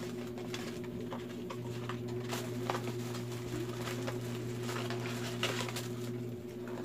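A cardboard face-mask box and a stack of disposable masks being handled: irregular rustles, taps and scrapes of card and paper, over a steady low hum.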